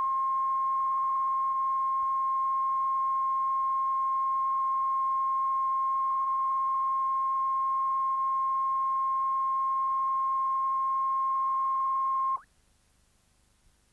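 Television line-up test tone broadcast with the colour bars: one steady, loud pure tone that cuts off suddenly near the end.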